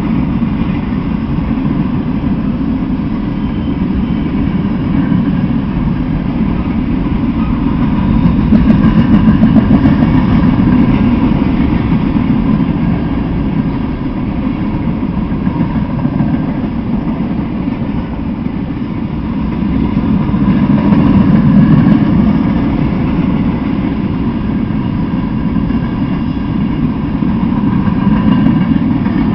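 Freight train rolling past: a steady low rumble of wheels and cars on the rails that swells twice.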